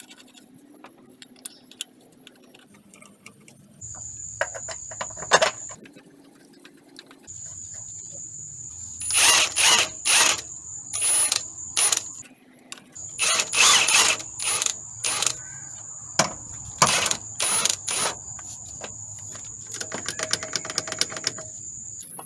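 Ratcheting wrench on a long socket extension tightening the upper engine mount bolt to its torque specification: clusters of sharp ratchet clicks as the handle is worked back and forth, with a faster run of fine clicking near the end.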